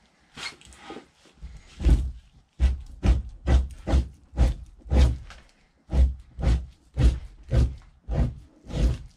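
A knife pushed in short, repeated strokes along a raccoon hide, scraping fat off it: each stroke a thump with a scrape, about two a second, with a brief pause near the middle.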